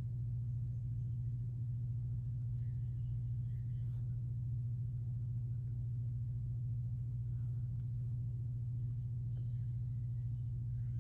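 A steady low hum with no change in level or pitch.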